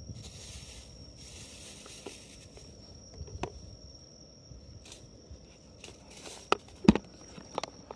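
Rustling and rubbing from hands being wiped on a cloth towel and gear being handled, with scattered clicks and two sharp knocks near the end. A steady high insect trill, like a cricket, runs beneath.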